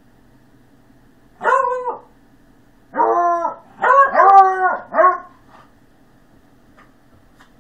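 Beagle barking in play while wrestling another dog: about five drawn-out barks, each rising and falling in pitch, one alone and then four in quick succession.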